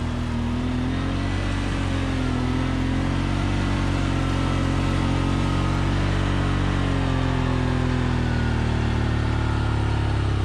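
An engine running steadily under way, its pitch wavering slightly up and down, over a continuous rush of noise.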